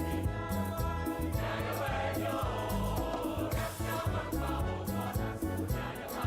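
Background music: choral gospel singing over a steady bass and beat.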